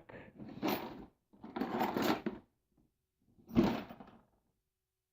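Handling noise of objects being moved and slid about, in three bursts of about a second each, the last with a thump about three and a half seconds in.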